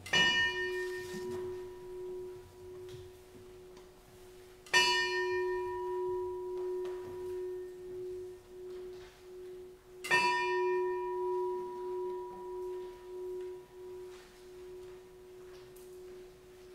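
A singing bowl struck three times, about five seconds apart, each strike ringing on in one long tone that pulses slowly as it fades.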